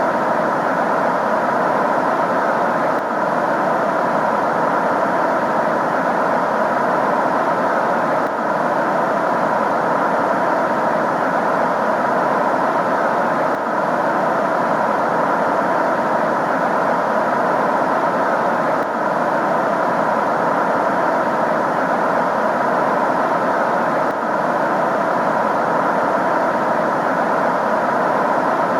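Steady rushing, blizzard-like noise with a faint steady hum in it, offered as the 'sound' of Neptune's moon Galatea. The loudness dips briefly about every five seconds.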